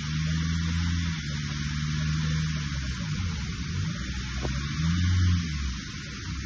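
Pickup truck engine droning under load on a muddy climb, its pitch rising and falling as the throttle changes.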